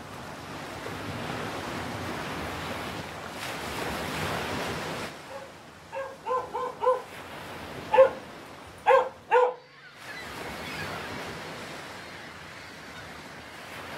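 Surf washing steadily on a beach, with a dog barking in a run of about seven short barks about halfway through.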